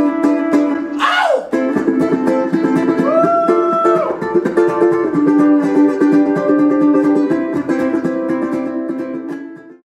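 Ukulele strummed quickly and hard, with a short sweep falling in pitch about a second in and a held note around three seconds in; the playing fades and cuts off just before the end.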